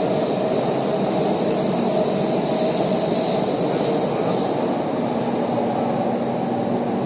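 Doha Metro train running at speed through a tunnel, heard from inside the front of the carriage: a steady rumble and hiss of motion with a faint hum underneath.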